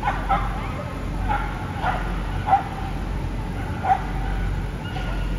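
Canaan Dog barking in short, sharp single barks, about six of them roughly a second apart, while held sitting at the start line as its handler walks away, over a steady low hum.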